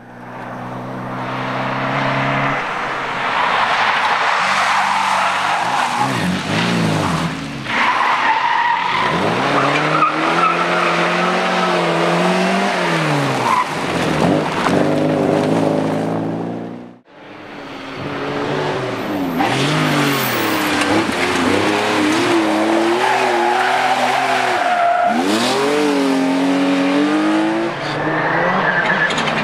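Rally cars driven hard past on a tarmac stage, their engines revving, with the pitch climbing and falling repeatedly as they accelerate, change gear and brake. The sound breaks off sharply about halfway through, then another pass follows.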